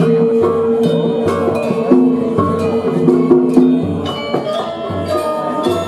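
Balinese gamelan playing dance music: ringing tuned-percussion notes, some held for a few seconds, with sharp strikes throughout.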